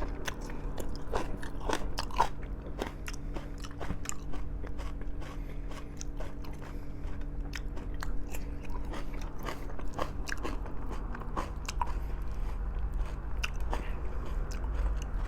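A person chewing and biting food close to the microphone, with many small wet clicks and crunches throughout, over a steady low hum.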